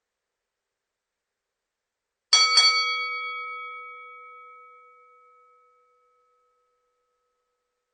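Boxing ring bell struck twice in quick succession a little over two seconds in, then ringing on and fading away over about three seconds, its lower tones lasting longest. It is the bell that signals the start of a boxing round.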